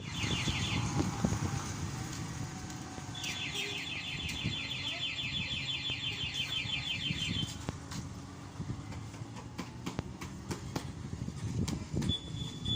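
Busy background noise with low murmuring voices and scattered clicks, overlaid by a rapid, evenly repeating high-pitched chirping trill, once briefly at the start and again for about four seconds from about three seconds in.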